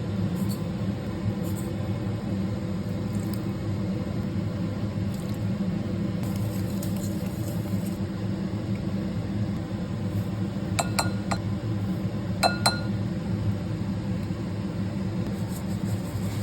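Kitchen sounds: a steady low hum, with two quick pairs of ringing clinks of dishware about two-thirds of the way through.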